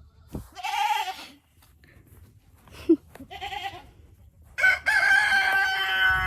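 Goats bleating with a quavering call twice, then a rooster crowing one long crow, the loudest sound, starting about four and a half seconds in.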